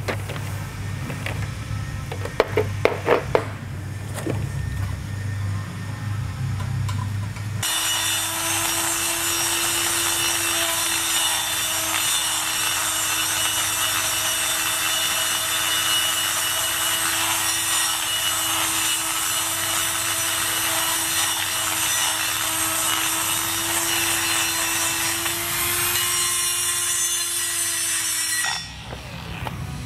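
A few light metallic knocks, then a die grinder starts about seven seconds in and runs steadily at one constant pitch for about twenty seconds, grinding the rough edge of a torch-cut hole in a steel pipe clean. It stops shortly before the end.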